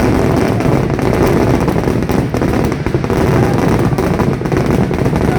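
Kerala festival fireworks (vedikkettu): a continuous barrage of firecrackers going off in rapid succession, a dense crackle of many bangs with no gaps.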